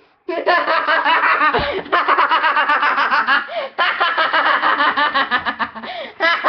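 People laughing hard, in loud, rapid, nearly unbroken peals that start a moment in.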